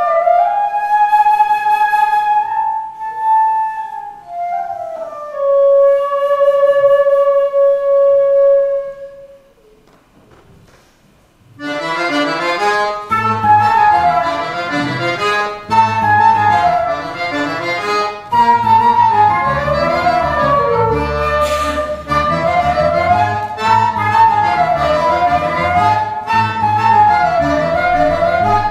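A flute plays a slow solo line of long held notes, then stops briefly. About twelve seconds in, flute, accordion and electric bass guitar come in together with a fast, busy tune over a strong bass line.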